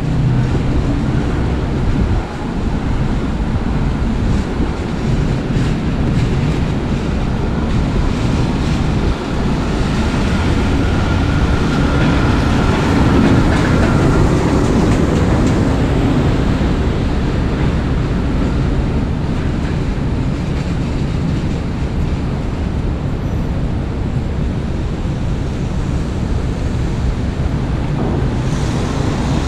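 Steady rumble of city traffic on wet pavement in the rain. A heavy truck passes about halfway through, the loudest stretch.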